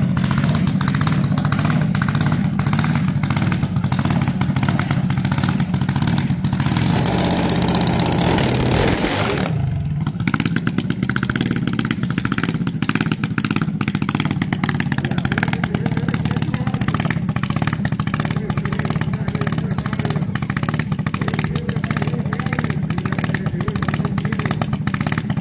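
Junior dragster engine running steadily with a rapid crackle of firing pulses, broken by a short wash of hissing noise about seven to nine seconds in.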